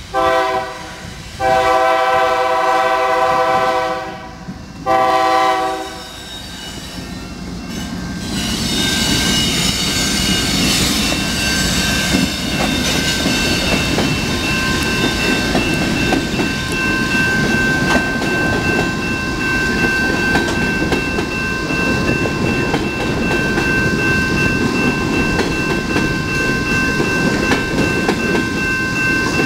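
Diesel freight locomotive horn sounding three blasts for a grade crossing, short, long, then short. Then a BNSF coal train rolls past: locomotive rumble and the clickety-clack of hopper wheels over the rail joints, with a steady high-pitched ringing over it from about eight seconds in.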